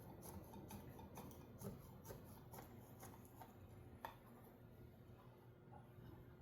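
Faint light clicks and taps, a few a second, from a soldering iron being handled as it is put back in its stand, with one sharper click about four seconds in.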